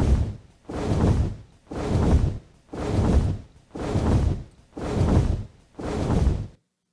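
Designed dragon wing-flap sound effect played back: seven heavy, deep whooshes, one about every second, like a large creature's wings beating, cutting off suddenly near the end.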